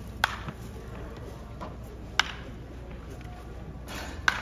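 Baseball bats striking balls in batting cages: three sharp cracks about two seconds apart, each with a short ring.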